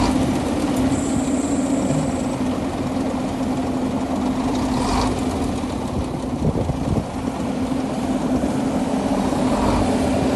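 Heavy diesel engine running steadily at idle. A short high whine comes in about a second in, and there is a single knock near the middle.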